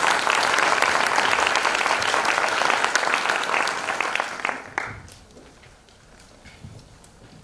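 Audience applauding, dense clapping that dies away about four to five seconds in, leaving only a few faint taps.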